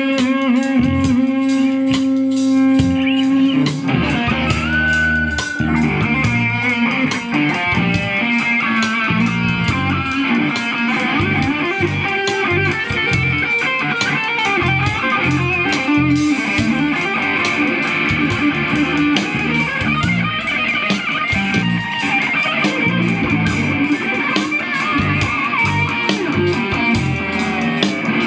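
Live rock band playing: guitar and bass over a drum kit keeping a steady beat.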